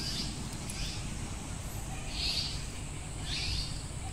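A bird calling repeatedly in short, high calls, four of them, over a low steady rumble.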